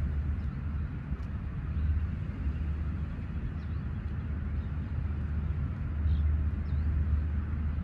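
Wind buffeting the microphone on an open seashore: a steady low rumble that swells and dips, with a few faint high chirps over it.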